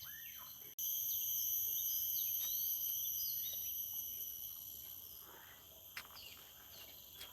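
Steady, high-pitched insect chorus with short bird chirps repeating over it. It comes in suddenly louder about a second in, then slowly fades.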